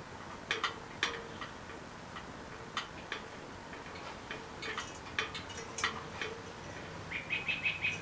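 Bird chirping in short, sharp, scattered notes, with a quick run of chirps near the end.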